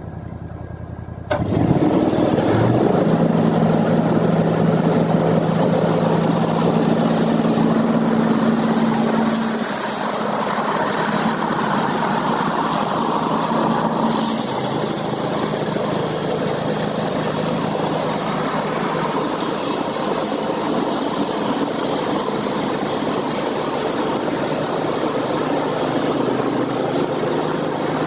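Sawmill engine revs up sharply about a second in, then runs loud and steady under load.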